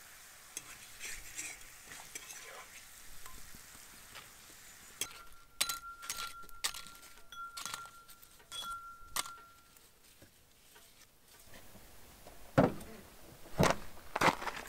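Light clicks and clinks of crisp fried tortilla chips being picked up off paper towel and dropped into a ceramic bowl. Near the end, a few heavier footsteps as a person steps down from the van.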